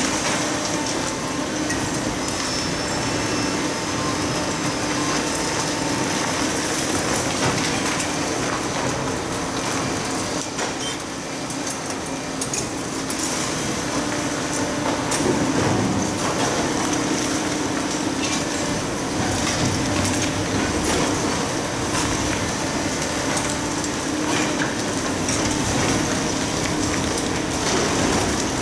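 Hydraulic demolition excavators, among them a Kobelco long-reach machine, tearing down a reinforced-concrete building. A steady engine hum runs under continual clatter and crunching of concrete and falling rubble.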